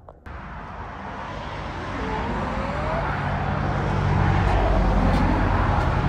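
Road traffic: a motor vehicle running on the road, its engine and tyre noise growing steadily louder over the first four seconds as it comes closer, then holding.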